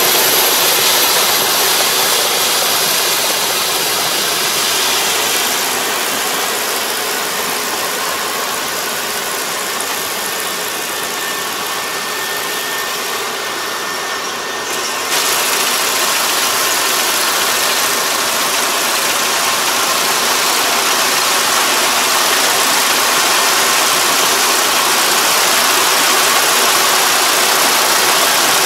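Combine harvester running steadily as it cuts rice, a constant mechanical noise. About halfway through it jumps suddenly louder.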